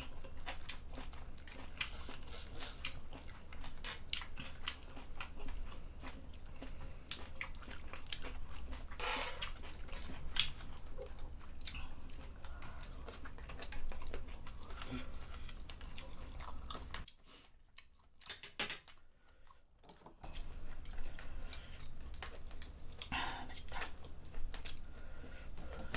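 Close-miked chewing and biting of a spicy seafood bulgogi of squid, shrimp and beef tripe, with scattered clicks of utensils against the pot. Past the middle there is a gap of about three seconds that is much quieter.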